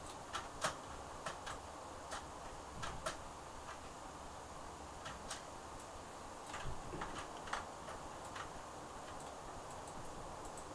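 Small, sharp, irregular clicks and taps of a nail brush working on a plastic practice nail tip, over a faint steady hiss.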